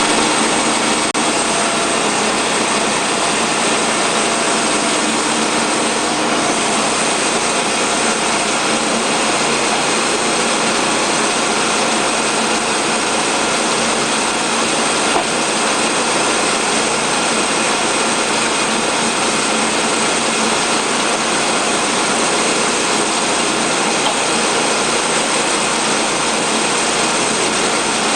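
Portable band sawmill running, its gasoline engine and band saw blade making a loud, steady noise that holds at one level.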